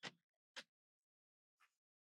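Three brief faint clicks from handling tools and metal, with near silence between them. The first, at the start, is the loudest; one comes about half a second later and a fainter one about a second after that.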